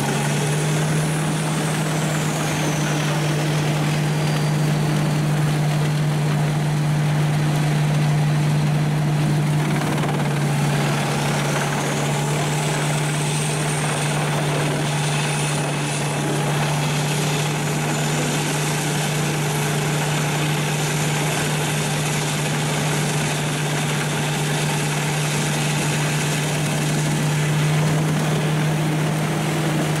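An engine running steadily at a constant speed, with a faint high whine that falls over the first few seconds and climbs back up from about ten seconds in.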